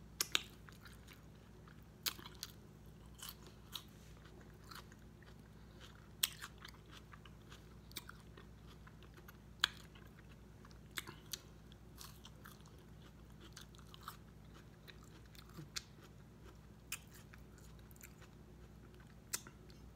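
Close-up mouth sounds of eating a chili cheese coney dog: wet chewing and smacking, with finger licking at the start and a bite into the soft bun near the end, heard as scattered sharp clicks.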